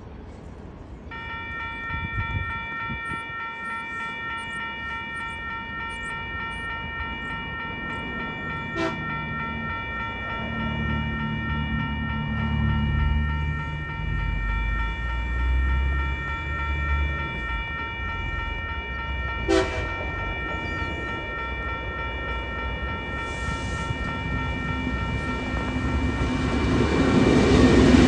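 Level-crossing warning signal ringing steadily as TasRail diesel locomotive TR08 approaches hauling a cement train. The locomotive's low engine rumble builds and grows much louder near the end as it reaches the crossing.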